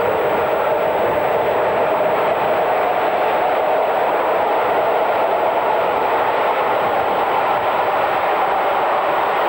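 Class 37 diesel locomotive hauling a train, its engine running with a steady, continuous drone that drifts slightly in pitch, mixed with rail noise.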